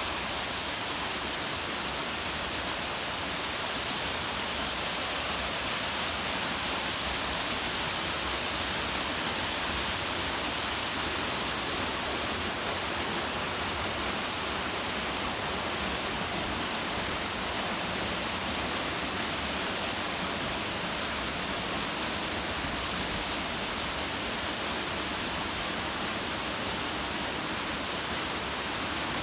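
Waterfall: a steady, unbroken rush of falling water, an even hiss with most of its strength in the high range.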